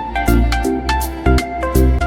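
Upbeat background music with a plucked melody over a steady bass beat.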